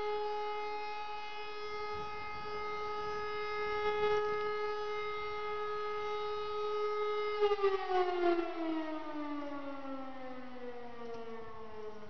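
E57 electric motor siren sounding the fire-alarm test signal: a steady held tone that, about seven seconds in, slides smoothly down in pitch as the siren winds down at the end of the blast.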